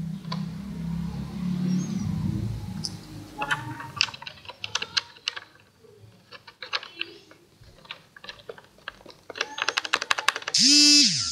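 Razer BlackWidow Stealth Edition mechanical keyboard with Cherry MX Brown switches being typed on: irregular key clacks begin a few seconds in and quicken into a rapid flurry near the end. A low hum fills the first few seconds.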